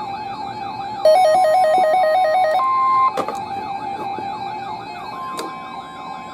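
Weather radio alert alarm sounding for a newly issued tornado watch: a warbling, siren-like alarm over a steady tone, with a louder rapid two-note trill from about one to two and a half seconds in and short steady beeps after it.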